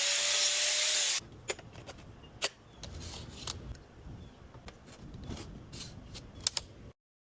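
A steady hiss that cuts off about a second in, then faint scattered clicks and rubbing, like small objects being handled, over a low rumble, ending in dead silence near the end.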